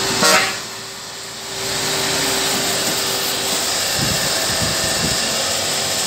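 Milk tanker truck gives a short horn toot as it passes, over a steady machine hum. About a second and a half in, a steady loud spraying hiss starts and holds: a pressure washer working.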